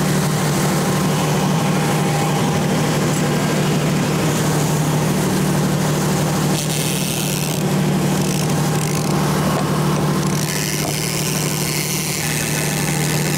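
Motor yacht's engine running steadily under way at trolling speed: a constant low drone under the hiss of water and wind.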